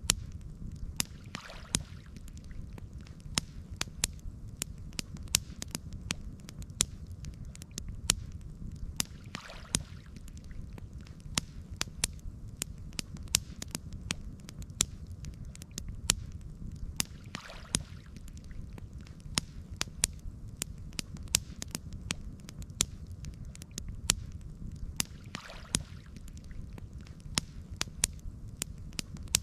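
Campfire crackling: irregular sharp pops and snaps, several a second, over a steady low rumble. A faint soft swell recurs about every eight seconds.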